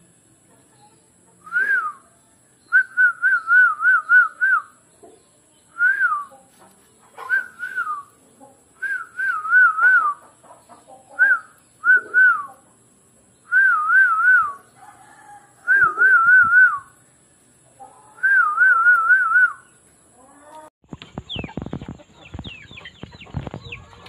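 A high whistle warbling quickly up and down in short trills, repeated about ten times with pauses between. Near the end the whistling stops and a crackle of clicks and rustling takes over.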